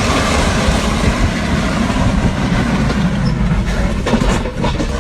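Steady, loud rumble and rush of a vehicle on the move, road and wind noise with no clear tone or break.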